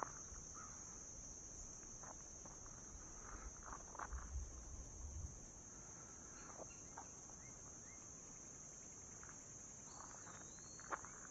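Faint, steady high-pitched drone of crickets, with scattered footsteps and a short low rumble about four seconds in.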